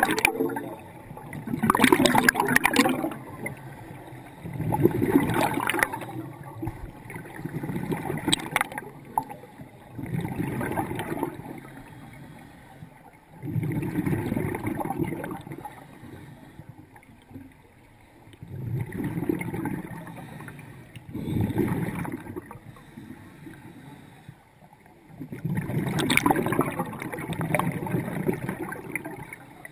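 Scuba breathing underwater: exhaled air bubbling out of a diver's regulator in gurgling bursts about every two to three seconds, with quieter gaps between breaths and a longer pause in the middle.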